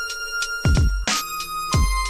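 Electronic background music with deep, booming bass kicks and sharp drum hits. Over them a held synth note steps down in pitch twice, about a second in and again near the end.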